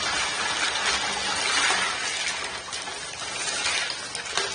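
Clear ice-cube-like filler pieces poured from a plastic bag into a metal tub reservoir, rattling and clinking as they pile up over the pump and into the water. The pouring is loudest about a second and a half in, with a sharp clink near the end.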